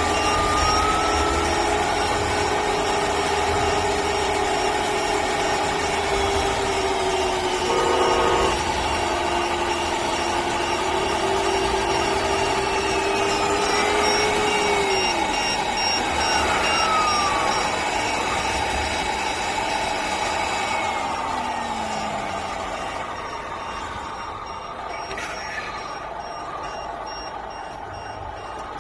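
Servonaut SM7 sound module in a 1/14 Tamiya scale truck playing a diesel truck engine through its speaker, the engine pitch rising and falling as the truck drives. A high repeating beep runs through the first half, and the sound grows fainter near the end.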